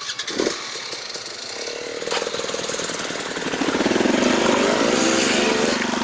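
Off-road trail motorcycle engine starting abruptly and running, its revs rising and wavering up and down in the second half.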